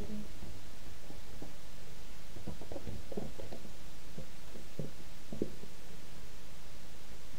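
Faint, soft thumps and scrabbling of a young ferret moving on and around a cardboard box on a blanket, scattered irregularly over a steady hiss.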